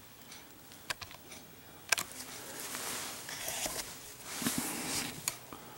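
Faint handling noise as a Zippo lighter is set in place among other lighters: a few light clicks and taps with soft rustling.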